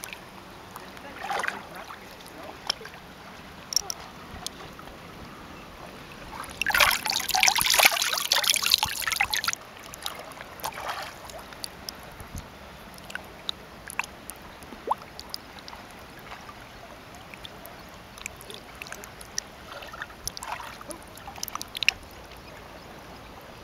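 Water splashing as a person standing in shallow water scoops and splashes it over their body, one loud burst lasting about three seconds in the middle. Smaller splashes and drips come before and after.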